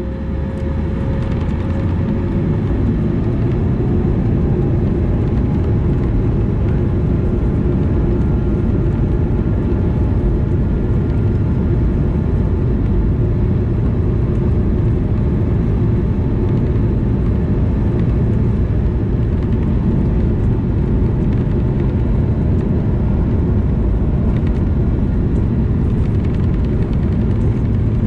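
Airbus A220-300's Pratt & Whitney PW1500G geared turbofan engines heard from inside the cabin, their whine climbing over the first few seconds as they spool up to takeoff power. A loud, steady rumble follows as the aircraft accelerates down the runway.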